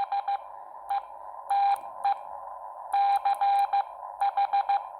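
Morse code sidetone from a Xiegu X6100 transceiver in CW training mode, keyed by hand on a Bencher BY1 iambic paddle: one steady mid-pitched beep sent as dots and dashes, spelling out the end of B, then E, N, C and H of 'BENCHER', over a faint steady hiss. Each element starts with a faint click.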